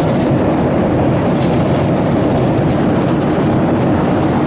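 Steady rumble of airliner cabin noise in flight, the engines and rushing air making an even, loud drone.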